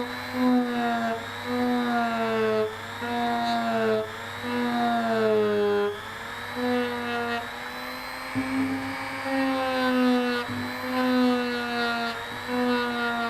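Small high-speed rotary tool running a rubber abrasive polishing wheel against the steel line-guide eye of a baitcasting reel. Its whine dips in pitch and recovers every second or two as the wheel is pressed on and eased off, polishing out line grooves in the eye.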